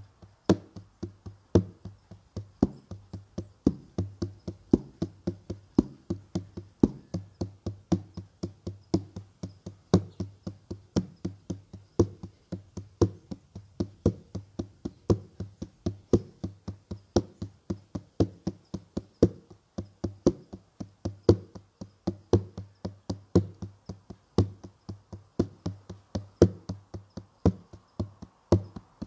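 Steady drumbeat, about two to three strikes a second: each beat is a sharp knock over a low thud, with louder and softer beats alternating.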